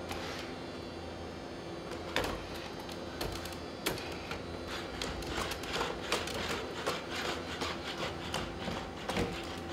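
Boston Dynamics SpotMini quadruped robot walking: its feet tap and click on the hard floor, the taps coming thick and fast in the second half as it steps through the doorway, over a steady mechanical hum.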